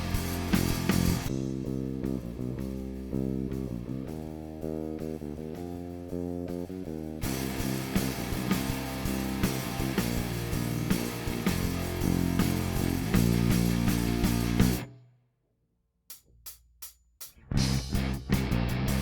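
Lakland Skyline 44-64 GZ PJ electric bass with passive EMG GZR-PJ pickups, played solo and recorded direct through a preamp. Sustained notes ring for the first several seconds, then give way to brighter, harder-picked playing. The playing stops for about a second near the end, then starts again with single plucked notes.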